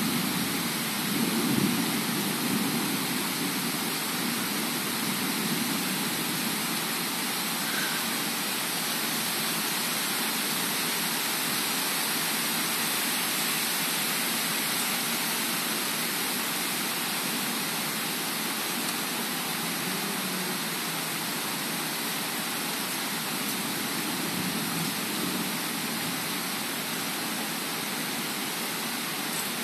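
Heavy rain pouring down steadily, a dense even hiss, a little louder in the first couple of seconds.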